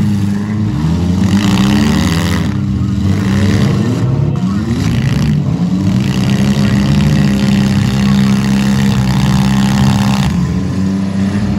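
Several compact demolition-derby cars' engines running together, revving with pitch sliding up and down around two to five seconds in.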